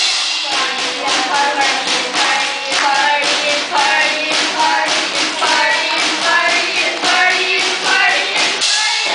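Boys singing a pop song into microphones over a steady drum beat, the voices amplified through the stage speakers.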